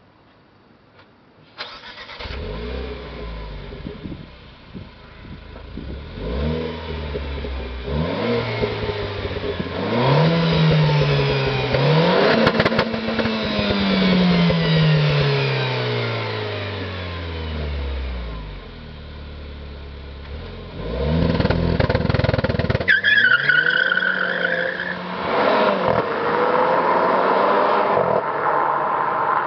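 Renault Clio R.S. Trophy 220's 1.6-litre turbocharged four-cylinder starting up through its exhaust, then revved several times, the pitch rising and falling, one long rev sinking slowly back. Near the end it is revved hard again and pulls away under launch control.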